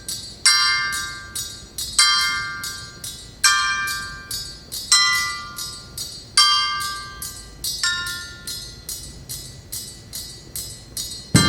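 Live percussion ensemble music: high, bell-like metal instruments struck in chords about every one and a half seconds, each stroke ringing and fading, over a fast, light ticking. The strokes grow fainter in the last few seconds.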